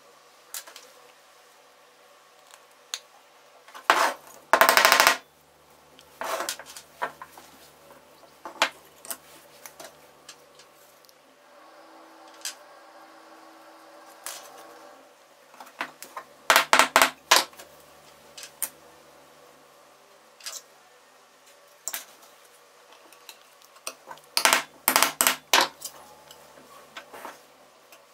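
Thin laser-cut wooden parts clicking, tapping and knocking as they are handled, fitted together and set down on a wooden bench, in several clusters of quick sharp knocks; the loudest cluster comes about four seconds in.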